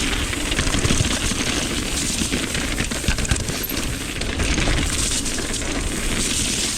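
Mountain bike descending a rough trail: a continuous rattle and clatter of the bike and its tyres over the ground, with wind rumbling on the microphone.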